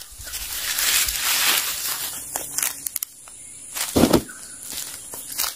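Rustling, crackling noise that swells over the first two seconds, then a single loud thump about four seconds in.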